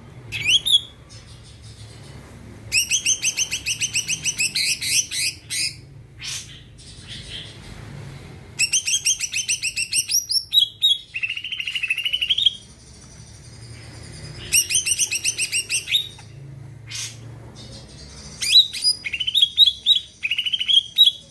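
Cucak ijo (green leafbird) singing in loud bursts of rapid, repeated high chattering notes, each burst lasting a few seconds with short pauses between. Some phrases rise in pitch. A low steady hum runs underneath.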